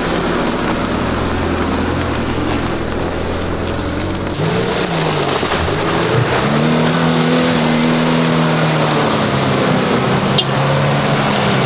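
An engine idles steadily for about four seconds. Then a lifted first-generation Subaru Forester's flat-four engine revs up hard, holds high revs and drops back as the car forces through deep mud ruts, its wheels sinking into the mud. The car gets stuck in the mud.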